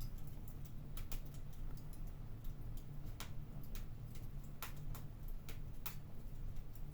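Fire in a fireplace crackling, with irregular sharp pops and snaps over a low steady rumble.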